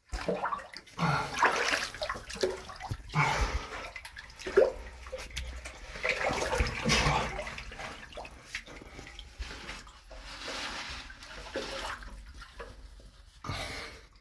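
Shallow cave water sloshing and splashing in irregular bursts as someone crawls through it on hands and knees.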